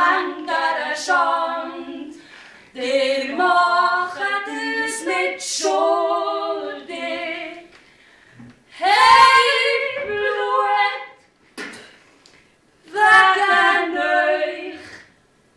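Two voices singing together without accompaniment, in several long held phrases with short breaks between them.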